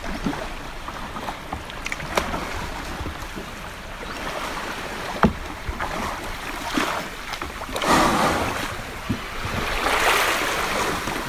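Water sloshing against a plastic kayak hull as it glides through the shallows and runs up onto a sandy beach. A few sharp knocks are heard, and a louder rushing, scraping noise comes around eight and ten seconds in.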